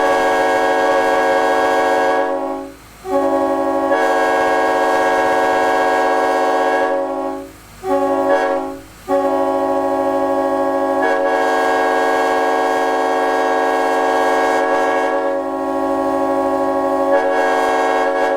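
Nathan K5LLB five-chime air horn, a raised-letter horn with a narrow-font straight-bore #4 bell, blowing its chord in the grade-crossing pattern: long, long, short, long. During the final long blast one of the chime notes drops out for a couple of seconds and then comes back.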